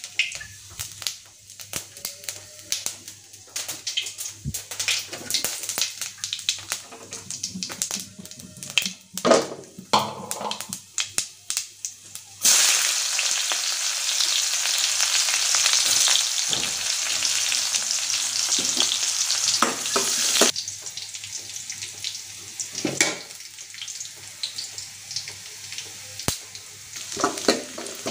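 Hot oil in a kadai crackling and popping around whole spices: dried red chili, bay leaf and cumin. About twelve seconds in, sliced onion and garlic go in and the oil turns to a loud, dense sizzle for about eight seconds, then settles to a lighter crackle as a spatula stirs.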